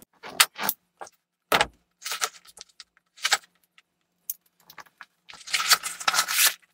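Scissors snipping and scraping at the tape on a flat cardboard box in short, separate clicks. Near the end comes a denser stretch of cardboard rustling and scraping as the box is opened.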